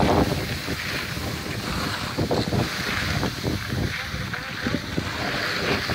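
Wind buffeting the microphone while skiing downhill, a gusty low rumble, over the hiss of skis sliding and scraping on packed snow.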